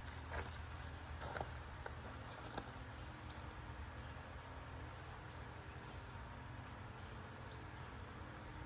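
Quiet background: a steady low hum, a few light clicks, and faint short high chirps.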